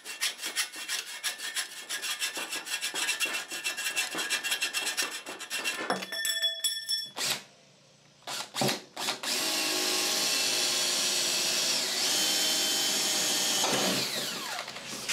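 A hacksaw cutting through metal electrical conduit with quick back-and-forth strokes, the tube ringing, for about six seconds. After a short pause and a couple of clicks, a Makita 18V cordless drill runs steadily as it bores into a pine board, its whine falling as it winds down near the end.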